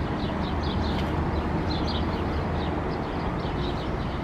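Small birds chirping in quick, short, repeated high notes over a steady low rumble.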